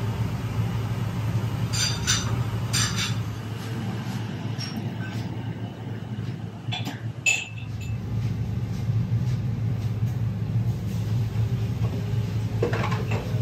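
Restaurant room noise: a steady low hum with a few sharp clinks of tableware about two, three and seven seconds in.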